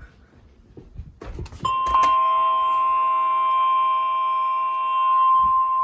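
A few faint clicks, then about one and a half seconds in a steady, single high alert tone starts and holds. This is the weather radio's 1050 Hz warning alarm tone, the signal that a warning message is about to be broadcast.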